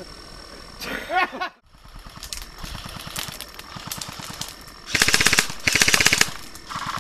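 Airsoft rifles firing: scattered single shots, then two rapid full-auto bursts of about half a second each, about five seconds in, and a short third burst near the end.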